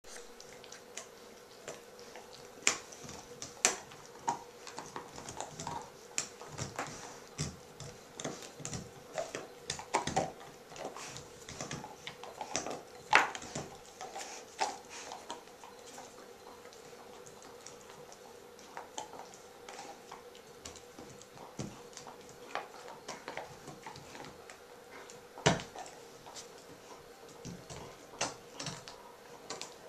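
German Shepherd dogs gnawing on chews: irregular clicks and crunches of teeth working the chews, busiest in the first half, with a short lull a little past the middle.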